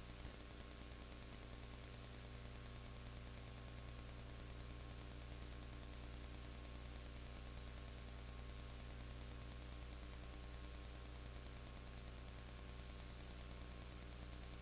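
Steady electrical hum, a low buzz with its overtones, under even hiss, with no game sound: the noise floor of an old videotape recording. A faint click just after the start.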